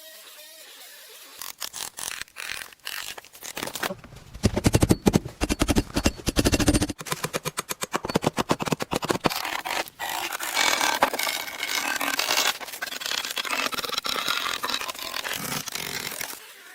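Woodworking on the build: a few knocks, then a run of fast rattling strokes for about three seconds, followed by steady scraping.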